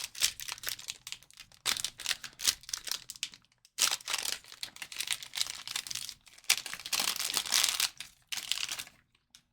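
Plastic or foil trading card wrapper crinkling and tearing open, in irregular bursts of rustling with short pauses between.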